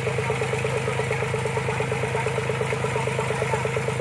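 Engine of a tracked rice-hauling carrier idling steadily, with a fast, even beat.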